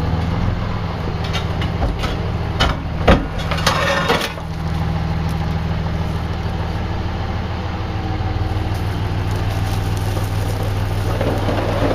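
An engine idling steadily throughout, with a few sharp knocks and a short scraping stretch about three to four seconds in.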